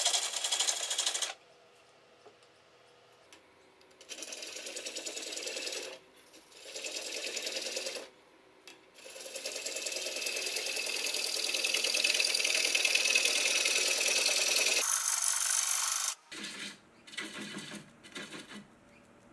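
A tool working a spinning slash pine bowl on a wood lathe, in stretches of steady noise broken by quiet gaps, the longest running for about six seconds in the middle.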